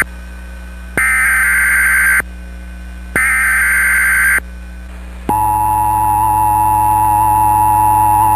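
Emergency Alert System SAME header: two screeching digital data bursts of about a second each, with short gaps between. About five seconds in, the steady two-tone EAS attention signal starts. Together they open an alert, here a required weekly test.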